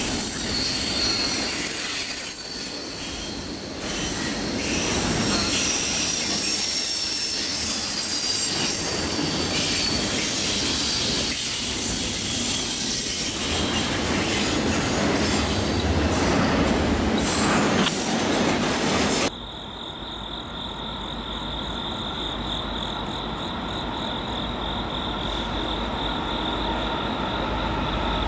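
Doublestack container freight train rolling past close by: steady rumble and clatter of the cars with thin, high wheel squeal over it. About two-thirds of the way through it cuts off suddenly to a quieter, steady sound as the next freight train approaches from a distance, with a high steady tone over it.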